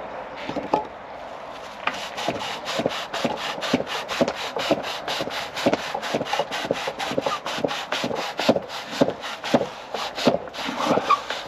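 Rhythmic scraping of a tool on a chestnut spindle turning on a pole lathe, about three strokes a second. It starts about two seconds in and stops near the end.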